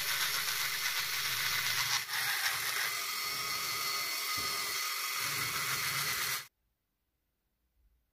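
Dremel rotary tool with a small carving burr grinding walnut: a steady whirring grind with two brief dips, cutting off suddenly about six and a half seconds in.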